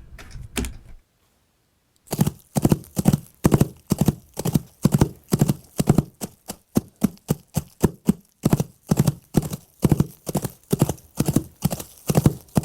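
Horse-hoof Foley props knocked in a steady walking rhythm, imitating a horse's clip-clop hoofbeats. They start about two seconds in, after a short pause.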